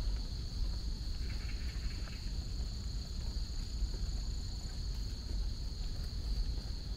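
Steady chorus of insects in the trees and grass, a continuous high-pitched drone held at one pitch, over a constant low rumble.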